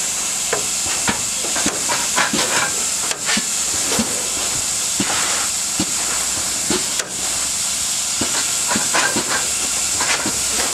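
Steam locomotive hissing steadily at rest, with frequent short scrapes and clinks of a shovel working coal.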